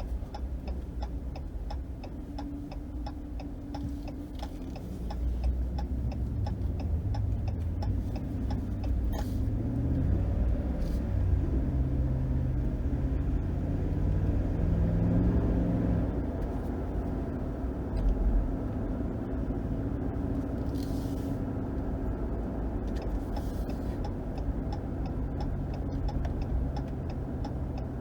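Ram 1500's 5.7-litre HEMI V8 and road noise while driving. About six seconds in, the engine pitch climbs in steps as the truck accelerates through the gears, then settles to a steady cruise. A regular light ticking runs through the first few seconds.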